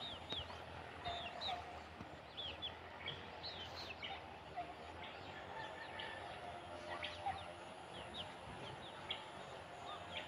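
Birds chirping: many short, quick calls repeated throughout, faint over a low background noise.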